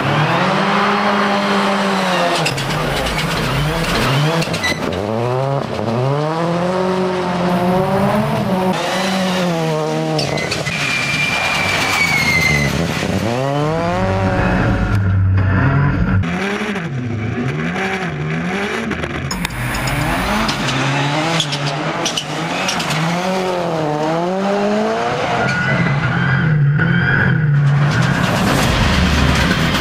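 Peugeot 208 rallycross car's engine, heard from inside the cockpit, being driven hard. The revs climb and drop over and over through gear changes and lifts, with quick blips on the downshifts. There is a brief tyre squeal about twelve seconds in.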